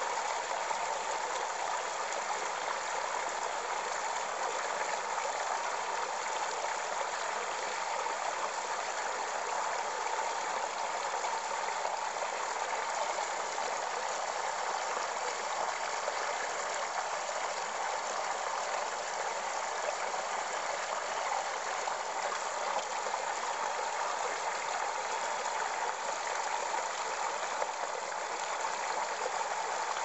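Small stream splashing down a little cascade over stones, a steady, even rush of water.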